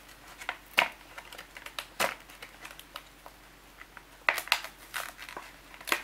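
Clear plastic blister packaging crinkling and crackling in the hands as a folding knife is worked out of it: scattered sharp crackles, with more of them in the second half.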